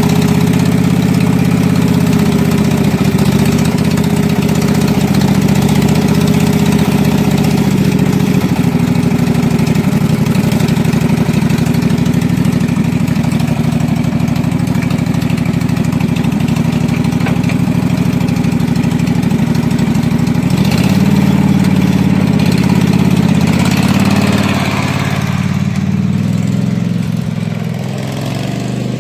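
18 hp Kawasaki V-twin engine of a Husqvarna riding mower running steadily at close range, freshly started on new gas after being completely submerged in a pond, with water in its gas and oil. About two-thirds of the way through its pitch steps up, and near the end it grows fainter as the mower drives off.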